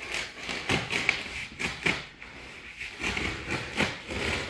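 Cardboard and packing material being handled while a boxed RC plane wing is unpacked: irregular rustling and scraping with several sharp taps and knocks.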